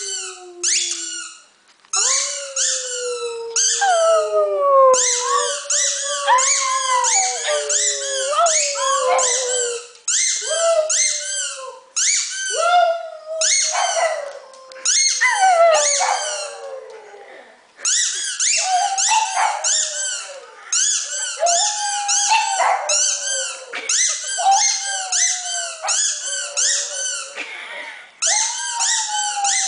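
A dog howls in long notes that slide downward, over a squeaky toy squeezed again and again in quick runs of high squeaks. The squeaking is what sets the dog howling.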